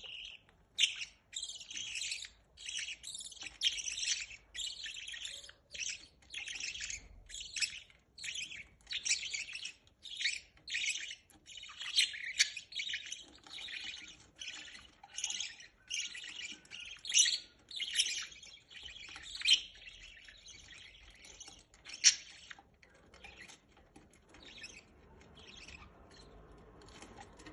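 Budgerigars chirping in a fast run of short, high chirps while the parents feed their chicks. The chirping thins out and grows quieter about twenty-three seconds in.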